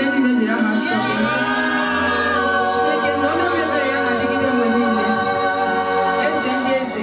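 A choir singing, several voices holding and moving notes together over a steady low bass note.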